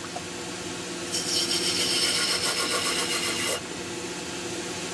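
A bowl gouge cutting into a turnip spinning on a wood lathe: a rasping scrape from about a second in until about three and a half seconds, then it drops away, over the lathe's steady low hum.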